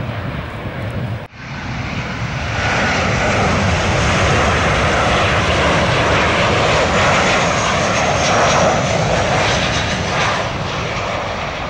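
Jet engines of a low-flying Southwest Airlines Boeing 737 on its landing approach: a loud, steady roar with a thin high whine. It starts after a sudden cut a little over a second in, swells over the next couple of seconds and eases slightly near the end.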